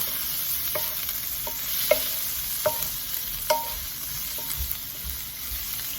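Onion, garlic and sliced plant-based sausage sizzling in a pan while being stirred. The utensil knocks against the pan about once a second with short ringing clicks.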